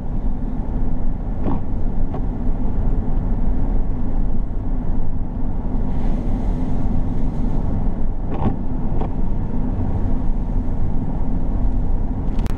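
Vehicle driving on a wet road, heard from inside the cab: a steady low drone of engine and tyres on wet pavement, with a few faint clicks.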